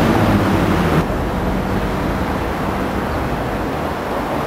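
Steady low outdoor background rumble. A louder sound with a steady pitch is cut off abruptly about a second in.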